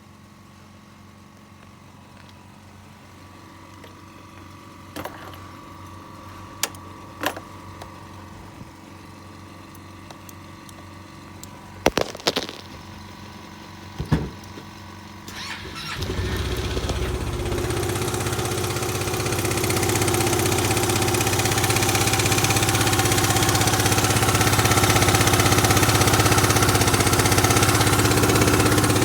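A few sharp clicks and knocks, then about sixteen seconds in the Yamaha Grand Majesty scooter's engine starts and runs steadily, growing louder. It makes a new abnormal engine noise, which the owner hopes is an exhaust leak at the AIS pipe but fears comes from the crank or cylinder head.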